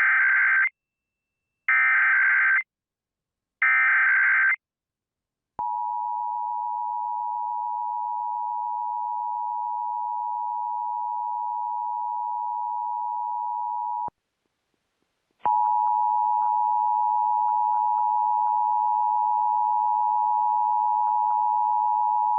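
Emergency Alert System signal: three short warbling bursts of the digital SAME header, then the steady two-tone attention signal for about eight seconds. After a short break, another long steady alert tone with faint clicks over it begins about fifteen seconds in.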